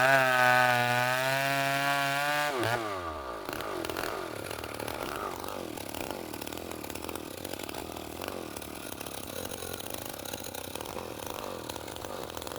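Two-stroke chainsaw running at high revs, then throttled off about two and a half seconds in, its pitch falling to a quieter, unsteady low-speed run.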